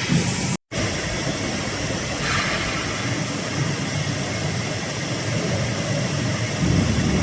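Hydraulic press brake running: a steady mechanical noise from the machine's pump and drive. It drops out briefly just after the start, gives a short hiss about two seconds in, and the low rumble swells near the end.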